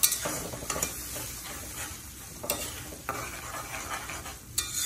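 Metal slotted spatula stirring and scraping a sizzling spice paste (masala) in a metal karahi, with a few sharp knocks of the spatula against the pan. The masala is being fried down (bhuna).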